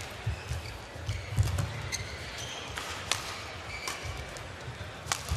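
Badminton rally: sharp, irregularly spaced racket strikes on the shuttlecock, with players' shoes briefly squeaking and feet thudding on the court.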